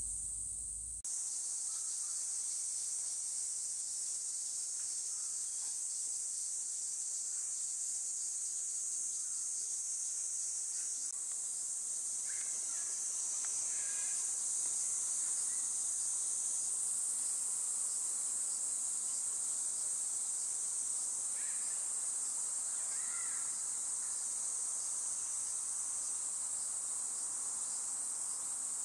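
Chorus of cicadas: a steady, high-pitched drone that grows a little louder about halfway through, with a few faint short calls in the middle.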